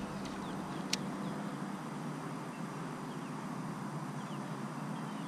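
A steady low hum with faint, short bird chirps over it and one sharp click about a second in.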